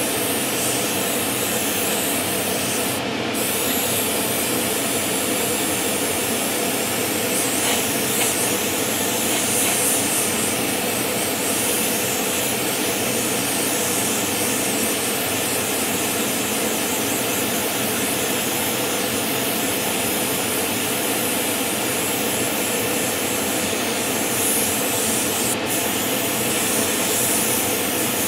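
Airbrush spraying a thinned off-white acrylic coat: a steady hiss of air and paint that breaks off briefly twice as the trigger is let go. A faint steady hum runs underneath.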